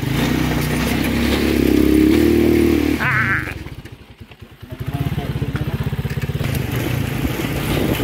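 Motorcycle tricycle's engine pulling under load, rising in level over the first few seconds, with a short high wavering squeal about three seconds in. The engine then drops away almost to quiet for about a second before running steadily again.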